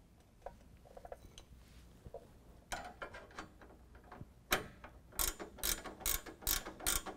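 Hand ratchet wrench clicking as a nut is run down on a bracket bolt, snugged but not fully tightened. It starts as faint scattered clicks and becomes a louder, regular series of ratcheting strokes, about two or three a second, in the second half.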